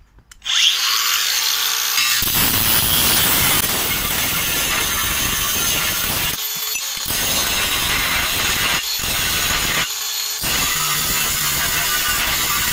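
Makita DGA504Z cordless 125 mm angle grinder cutting through 3 mm cold-rolled steel plate with a cut-off disc. It starts about half a second in and runs on loud, broken by three short gaps in the second half.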